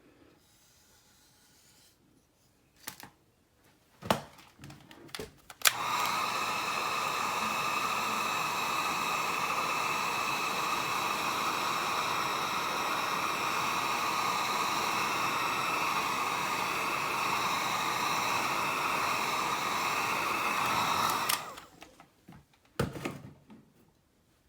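A few knocks and clicks of handling, then a hand-held hot-air dryer is switched on and runs steadily for about fifteen seconds, drying freshly applied paint on a plastic airsoft magazine, before it cuts off. A couple more knocks follow.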